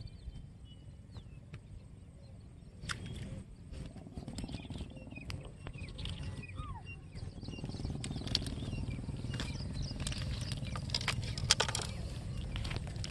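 A low rumble with a run of sharp clicks and knocks as a small fish is reeled in, landed and handled over the rocks, the clicks thickest in the second half. A few short falling chirps sound in the first half.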